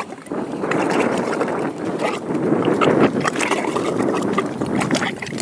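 Mud volcano gurgling: gas bubbling up through thick wet mud, with many small pops and plops.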